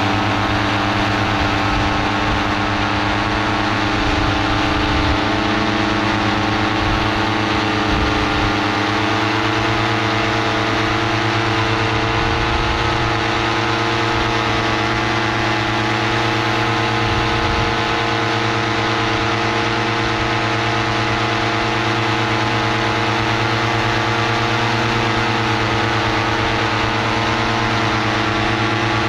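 Paramotor engine and propeller running steadily at constant cruise power in flight.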